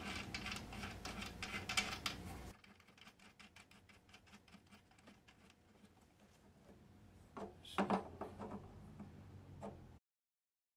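Small metal clicks and scratches of a washer and nut being fitted by hand onto the threaded barrel of a guitar's endpin input jack. The clicking is louder at first, then drops to rapid faint ticking, with a few sharper clicks near the end.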